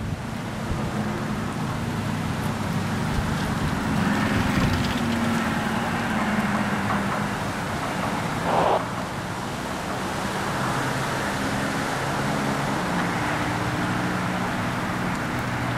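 A fire truck's Detroit Diesel 8V two-stroke V8 diesel engine running under load as the truck drives off, a steady low drone whose pitch shifts a little. About halfway through there is one short, higher-pitched blast.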